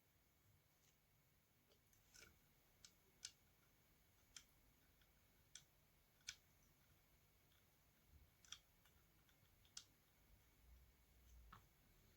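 Near silence broken by about a dozen faint, irregular clicks and ticks, spaced a second or so apart: small parts and a tool being handled on a vacuum cleaner motor.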